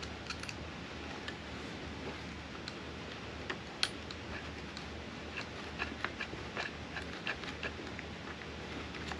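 Scattered light clicks and taps of small hard parts being handled as an aluminium servo bracket is fitted into an RC crawler chassis, the sharpest click about four seconds in and a quicker run of them in the second half, over a low steady hum.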